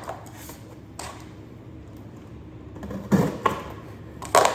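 A few sharp clicks and knocks of objects being handled over a quiet room background: one about a second in, a short cluster around three seconds in, and the loudest near the end.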